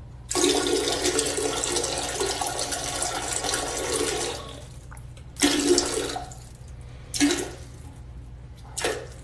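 Toilet flushing: a rush of water lasting about four seconds, then three shorter bursts of rushing noise.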